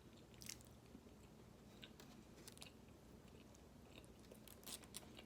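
Faint chewing and eating, a few soft mouth clicks scattered through an otherwise quiet stretch.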